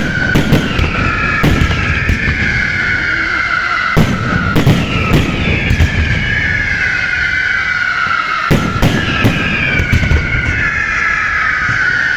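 Fireworks going off in a rapid string of loud bangs, a dozen or so, over a steady layer of high whistling tones that keep falling in pitch.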